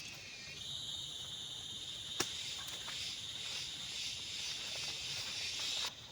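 A steady, high-pitched insect buzz that starts just under a second in and cuts off suddenly near the end. A single sharp click comes about two seconds in.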